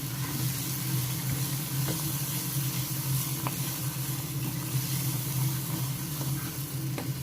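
Onion-and-spice masala sizzling in oil in a pan as a ground fennel and nut paste is stirred into it, over a steady low hum.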